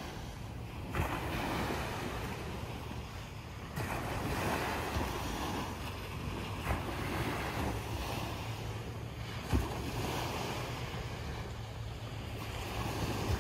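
Small waves breaking and washing up a sandy beach, the surf swelling and easing every few seconds, with wind buffeting the microphone now and then.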